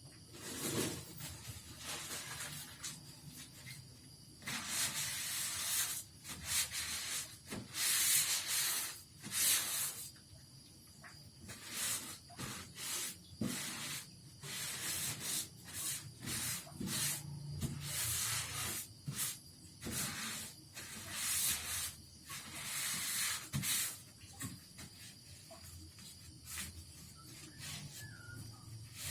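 Irregular hissing strokes, some short and some lasting a second or two, from a sewing machine being cleaned by hand.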